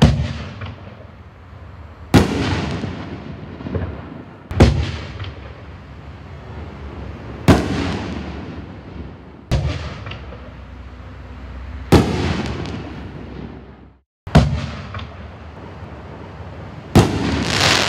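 Black Cat Diablo 24-shot 60-gram canister shell cake firing in sequence. About eight loud shell bangs come two to three seconds apart, each trailing off over a second or two.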